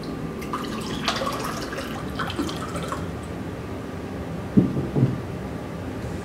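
Liquid poured from a decanter into a glass, splashing for a couple of seconds. It is followed by two short knocks as glassware is set down on the table.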